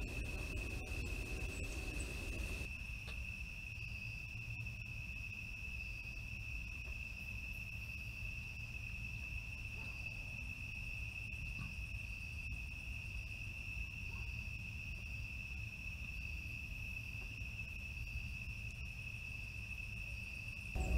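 Crickets trilling in one steady, unbroken high-pitched note over a low background rumble.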